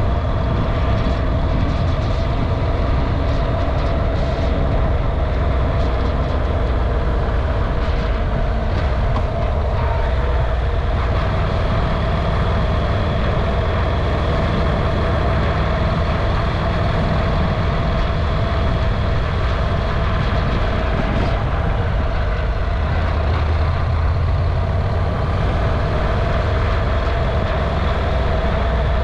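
A moving vehicle's steady running noise, heard from a camera mounted on the vehicle: an even drone with heavy low rumble that stays level throughout.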